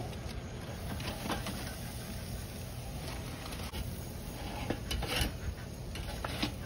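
Metal spatula and knife scraping and clicking against a charcoal grill's wire grate as racks of pork ribs are shifted: a few short scrapes about a second in, a cluster around five seconds in and one near the end, over a steady low rumble.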